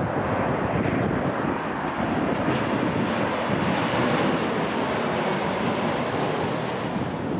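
Boeing 737 airliner on final approach with its landing gear down, its twin jet engines giving a steady roar of noise as it passes close by, with a faint high whine sliding slightly down in pitch in the second half. Wind buffets the microphone.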